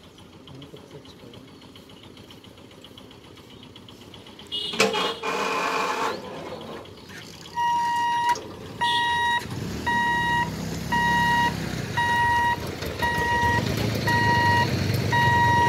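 Level-crossing warning beeper sounding a steady high-pitched beep a little more than once a second while the boom barriers lift, starting about halfway through. Before it, a loud blare about five seconds in; in the second half the engines of waiting motorcycles and scooters rumble as they move off across the tracks.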